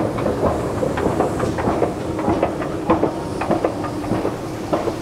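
Escalator running: a steady mechanical hum with a constant tone, and irregular rattling clicks from the moving steps and drive.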